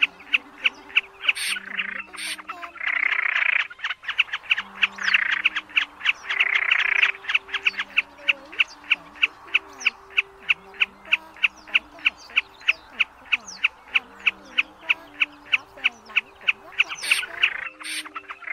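Recorded snipe calls used as a night-trapping lure: a fast, even run of sharp ticking calls at about three or four a second, with a few harsh rasping calls in the first half. Faint background music with low held notes plays underneath.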